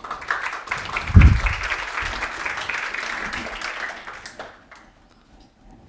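Audience applauding, a dense patter of many hands clapping that dies away after about four and a half seconds. A low thump about a second in.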